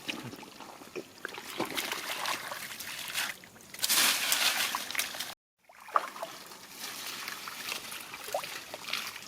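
Water sloshing and splashing in shallow rice-field water as hands work through it, with small drips and clicks throughout and a louder splashing stretch just before the middle. A brief cut to silence follows.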